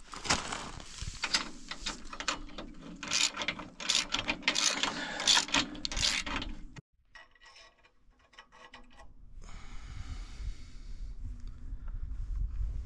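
Ratchet wrench clicking rapidly as a bolt on a sawmill's steel handle bracket is tightened. The clicking stops abruptly about seven seconds in, leaving a quieter, steady low noise.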